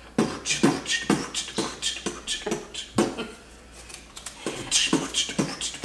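Spinner wheel of a Game of Life board game clicking as it spins, about four to five ticks a second.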